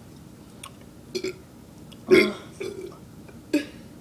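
A girl burping after gulping fizzy Coke: a few short burps, the loudest a little after two seconds in.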